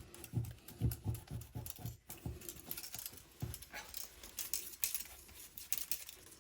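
A tool scraping leftover battery adhesive off a Samsung Galaxy S22's inner frame in short, quick strokes. The first few seconds carry duller knocks about two to three a second, then the strokes turn lighter and scratchier.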